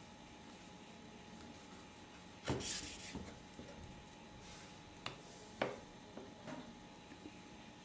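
Small knife cutting a cooked chicken sausage on a wooden chopping board: a faint scrape of the blade about two and a half seconds in, then a few light knocks and taps.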